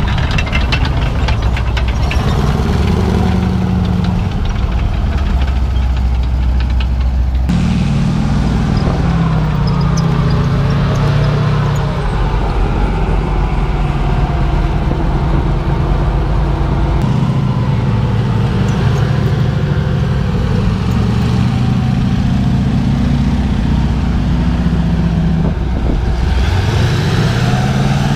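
Heavy military truck engine running, its low note stepping to a new pitch a few times.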